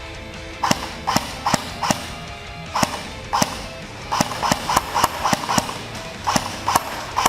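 Airsoft guns firing single shots: about fifteen sharp snaps at uneven spacing, with quicker runs of shots in the middle and near the end. Faint background music runs underneath.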